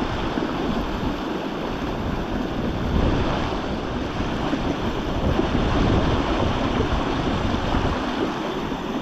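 Steady rushing of the South Platte River's flowing water, with wind buffeting the microphone.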